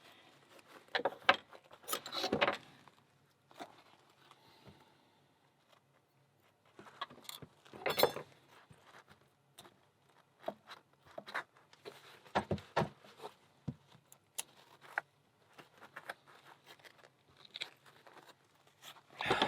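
Scattered small metallic clicks and clinks from the parts of an American 1100 padlock and small lock tools being handled, in short clusters with quiet gaps between.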